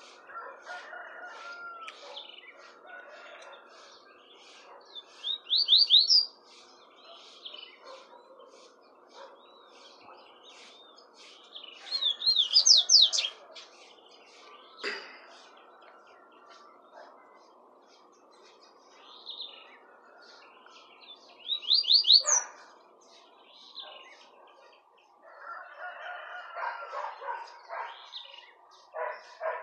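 Caged papa-capim seedeaters singing in turn, tuí-tuí and common song types. Three loud bursts of song, each a quick run of rising whistled notes, come about six, twelve and twenty-two seconds in, with lighter chirps between them. There is a single sharp knock about fifteen seconds in.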